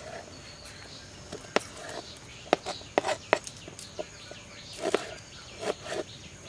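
Knife chopping fresh ginger on a wooden cutting board: a string of sharp, uneven knocks, several close together about 3 seconds in and again near the end.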